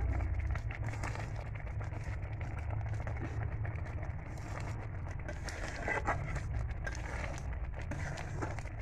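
Metal spatula scraping and stirring in a steel kadhai of simmering semolina halwa, in short irregular strokes, over a steady low rumble.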